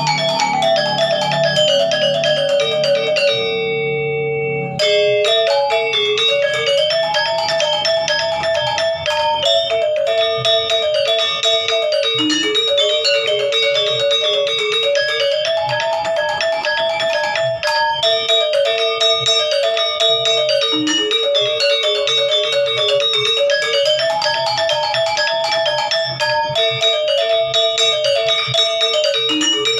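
Instrumental gamelan-style music: a fast, repeating melody on struck, bell-like metal keys. It pauses on a held ringing chord about four seconds in and then picks up again.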